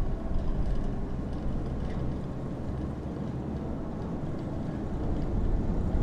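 Aerial ropeway running as a gondola cabin pulls out of the top station: a steady low rumble from the moving haul cable and station machinery.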